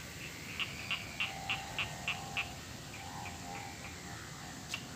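Repeated short animal calls, about three a second in a run of seven, falling quiet for a couple of seconds and starting again near the end.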